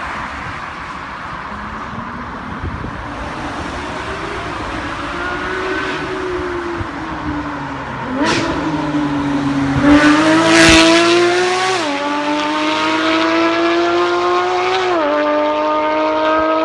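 Porsche 991 GT3 RS flat-six engine accelerating hard. It is faint and under noise at first, then comes in loud after a sharp crack about halfway through. Its note climbs in pitch and drops back twice at upshifts in the second half.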